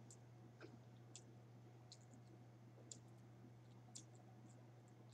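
Near silence with a few scattered faint clicks: eating sounds of chewing and of tearing crawfish bread by hand, over a low steady hum.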